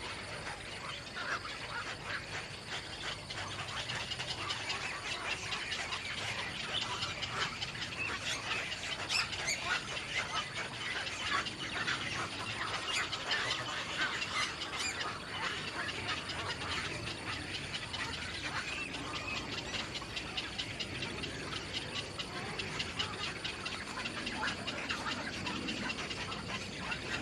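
Birds calling in a dense, continuous stream of short chirps.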